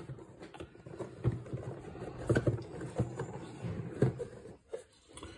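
Cardboard game-box lid being worked off its base by hand: irregular rubbing and scraping of card on card, with a few soft knocks.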